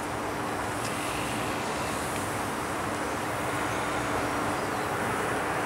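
Steady rushing background noise that grows slightly louder, with a faint steady hum underneath.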